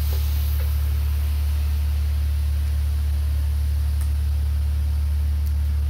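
Steady low machine hum with a faint hiss over it, unchanging throughout, with a couple of faint ticks.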